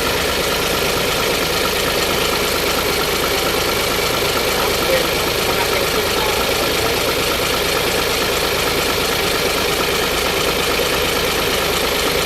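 Isuzu 6HK1 inline-six diesel engine idling steadily, running on freshly reworked injectors.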